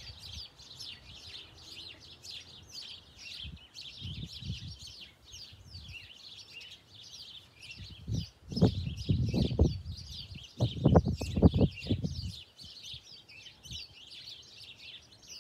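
Small garden birds chirping and singing continuously. In the second half, two louder stretches of low rumble, each lasting about two seconds, cover the birdsong's lower range.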